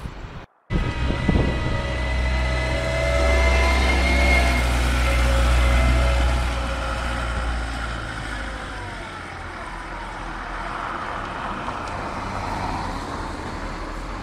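Diesel engine of a Komatsu wheel loader running close by, with a whine that rises and then falls in pitch. It is loudest in the first half and eases off later.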